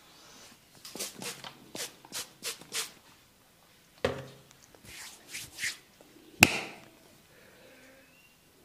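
Barber's hand-massage strokes: a quick run of about eight slaps or taps, then a few more, and a single sharp, louder smack about six seconds in.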